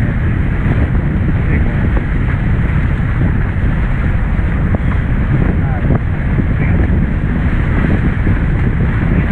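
Steady, heavy wind buffeting the microphone on a Hobie 16 catamaran sailing under way, over the rush of lake water past the hulls.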